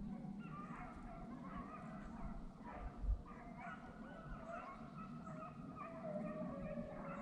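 A pack of deer hounds baying on a trail, several dogs' overlapping drawn-out voices heard faint and far off, with a low rumble of wind or handling underneath and a thump about three seconds in.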